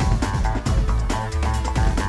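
Soundtrack music with guitar over a steady drum beat.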